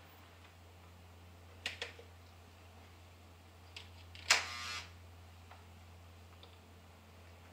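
HO scale model train running on its track: a pair of sharp clicks, then about two seconds later a louder, short rattling clatter, over a steady low hum.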